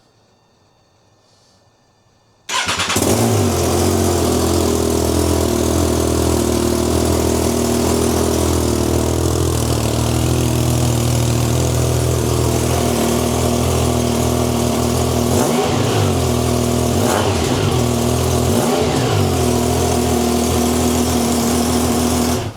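Triumph Trident 660 inline-three engine running through an aftermarket exhaust. It comes in abruptly about two and a half seconds in, then runs at a steady level, with a few brief wavers in pitch past the middle.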